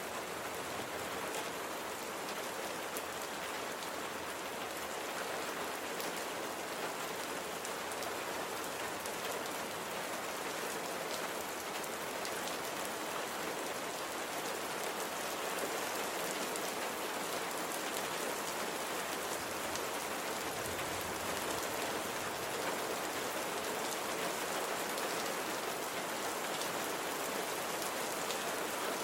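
Steady rain falling on a surface, an even hiss with fine patter of individual drops.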